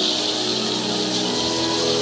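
Dozens of Parachico chinchines, hand rattles, shaken together in a dense, steady rattle, over several steady musical tones and crowd noise.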